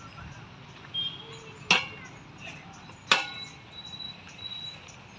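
Two sharp metal clanks with a short ring, about a second and a half apart, from the chains and frame of a playground swing as it is handled.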